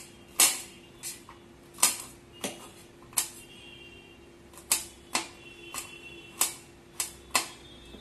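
Knife chopping garlic cloves on a steel plate: about a dozen sharp, irregular clicks as the blade strikes the metal, roughly one or two a second.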